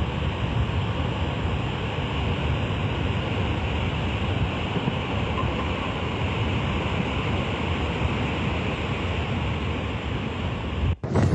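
Steady wind noise on the microphone over heavy surf, a constant rushing sound with a strong low rumble. It cuts off abruptly near the end.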